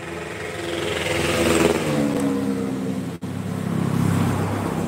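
A motor vehicle's engine passes, louder at first, then its pitch falls away as it goes by. The sound drops out briefly about three seconds in, followed by a low, steady engine hum.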